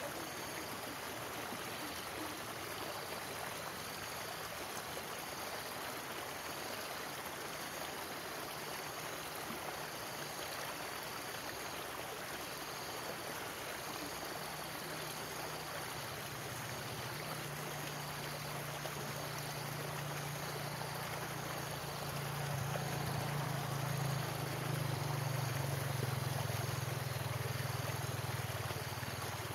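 Stream water rushing steadily over rocks below a culvert. About halfway through, a low hum fades in and grows louder toward the end.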